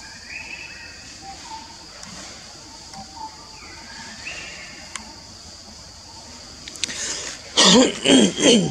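Forest ambience: a steady high insect drone with a faint short call repeating about every two seconds. Near the end come three loud voice-like calls in quick succession, each falling in pitch.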